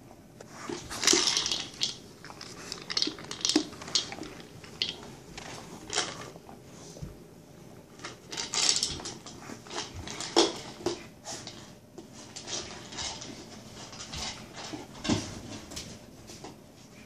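PetSafe Magic Mushroom, a hard plastic treat-dispensing dog toy, being nosed and knocked about by a dog: irregular clattering and knocking of the plastic, with treats rattling inside. Louder knocks come about a second in and several more times as the toy is tipped and shoved.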